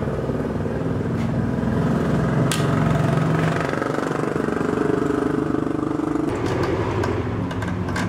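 An engine running steadily at an even pitch, with a couple of sharp metallic clicks in the first few seconds.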